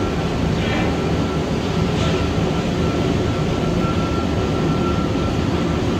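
Steady mechanical rumble of workshop machinery running, with a faint high whine held throughout.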